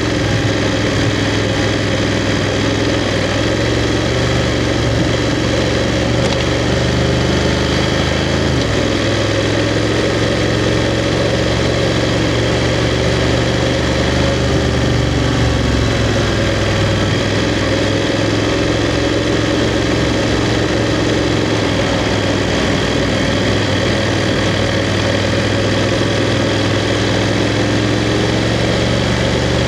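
BMW F 750 GS motorcycle's parallel-twin engine running steadily at low revs, with small changes in engine speed about 8 and 16 seconds in.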